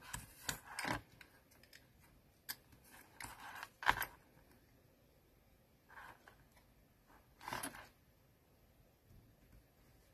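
Craft scalpel cutting through paper on a cutting mat: a few short, faint scratches and clicks spread out, with gaps of quiet between them; the loudest come about four seconds in and again near the three-quarter mark.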